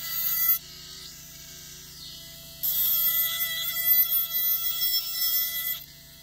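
Dental lab micromotor handpiece with an abrasive point grinding the acrylic flange of a denture to bevel its border. The high grinding noise comes in two stretches: briefly at the start, then from about two and a half seconds in until near the end. Between them only the handpiece's steady whine is heard.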